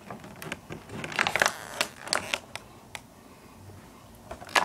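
Cardboard and plastic packaging of a trading-card collection box being handled, rustling with a cluster of short crackles and clicks from about a second in, then quieter for the last second or two.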